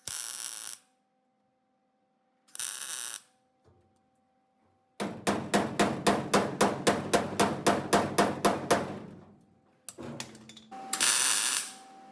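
Hammer striking sheet metal in an even run of about sixteen blows, roughly four a second, lasting about four seconds. Short bursts of hiss come before the blows and again near the end.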